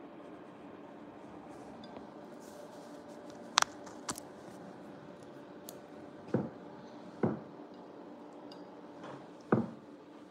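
Five short clicks and knocks as a ceramic plate, wooden skewers and utensils are handled on a wooden cutting board. The sharpest click comes about three and a half seconds in. A steady low hum runs underneath.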